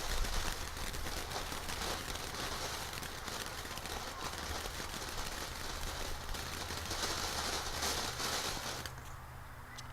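A ground firework spraying sparks, a steady hiss full of rapid crackling pops, that cuts off suddenly near the end.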